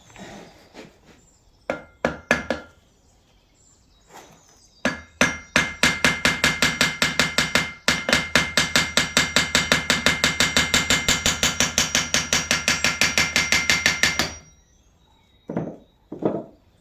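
Hammer striking a metal part of a Land Rover Defender's rear axle hub to knock it free: three blows, then a fast, even run of about five ringing metallic strikes a second for around nine seconds, stopping suddenly.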